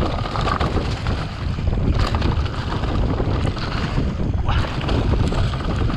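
Mountain bike descending a dirt singletrack at speed: wind buffeting the camera microphone over the rumble of the tyres on the dirt, with many small knocks and rattles from the bike over bumps.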